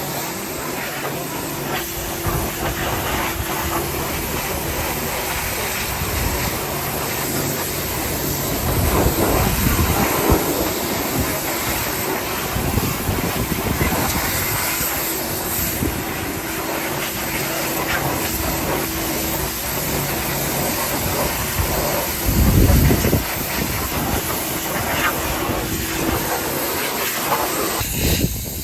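High-pressure water spray from a pressure washer hissing steadily as the engine bay is washed, with a faint motor hum coming and going underneath.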